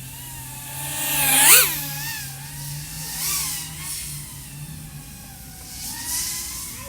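The iFlight AOS 3.5 V5 FPV quadcopter's motors (XING 1504 3100KV) are whining. About a second and a half in, the pitch sweeps sharply up and back down with a loud peak from a throttle punch or pass. Smaller surges in pitch come around three seconds and six seconds in.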